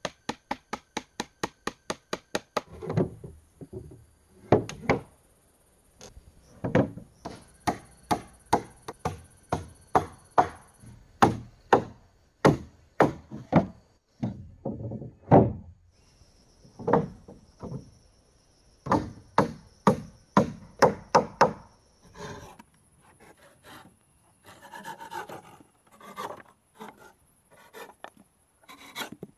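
A hand tool striking wooden boards and beams. It opens with a quick, even run of knocks, about four a second, goes on to irregular strikes, and near the end turns to softer scraping and tapping.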